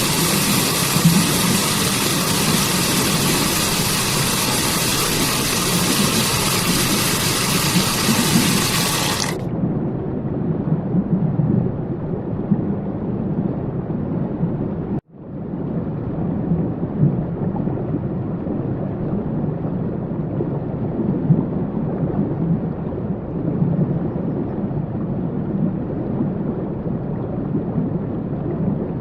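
Steady rushing water of a waterfall or stream. About nine seconds in, the bright hiss cuts off abruptly and the water goes on as a duller, muffled rumble. Around fifteen seconds there is a brief dropout at a splice in the track.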